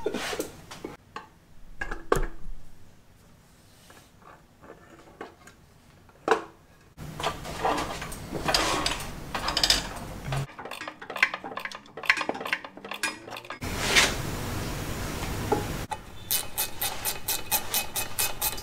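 Metal hand tools clinking, scraping and clattering during work under a car, in several short bursts. Near the end comes an even run of quick clicks, about four a second, from a ratchet wrench turning a bolt.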